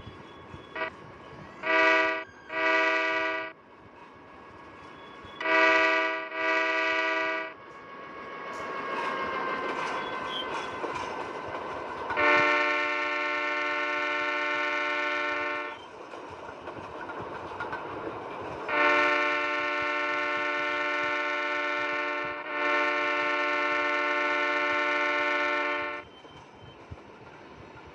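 Train horn sounding repeatedly: two pairs of short blasts, then one long blast, then two more long blasts. Between the blasts the train can be heard running past, with a faint tone that slowly falls in pitch.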